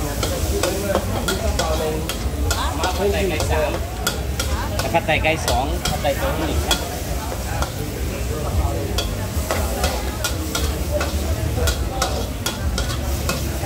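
Long-handled metal ladle repeatedly scraping and clanking against a steel wok as food is stir-fried, with sizzling in the pan and a steady low rumble underneath.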